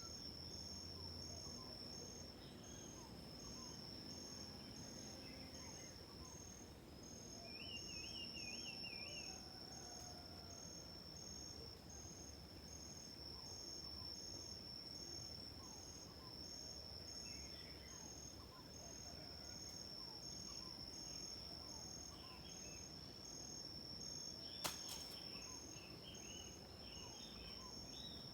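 Insects chirring steadily, one high continuous trill together with a regularly pulsing one, under faint scattered bird chirps and a short warbling bird call about eight seconds in. A single sharp click near the end.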